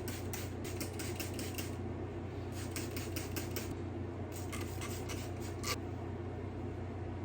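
Trigger spray bottle misting hair in quick repeated squirts of water and sea salt spray, in three bursts of about four squirts a second, over a steady low hum.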